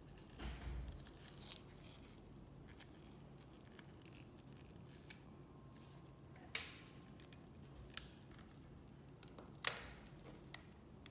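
Small clicks and taps of tools and parts being handled while an iPhone 7 Plus is taken apart, with a soft rustle at the start and two sharper clicks, about six and a half and nine and a half seconds in.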